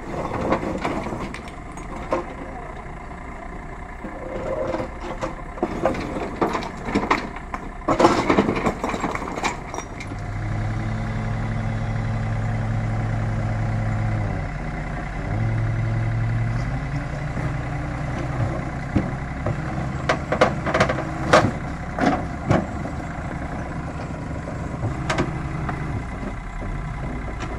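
Diesel engine of a mini excavator running and working under load, its note strengthening and holding steady for several seconds in the middle. Scattered clanks and knocks come earlier and later, as the bucket pushes against the steel tipper body loaded with rocks.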